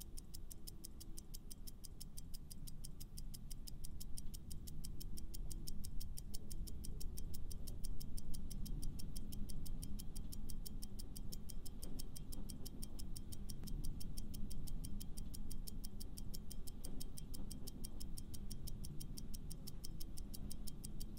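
Clock ticking sound effect, a steady fast tick, over quiet background music, marking a countdown timer for answering a quiz question.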